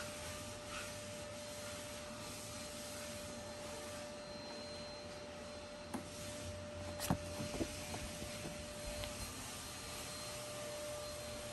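Paperback books being handled and leafed: a few soft knocks and paper rustles, the sharpest about seven seconds in, over a steady background hiss with a faint steady tone.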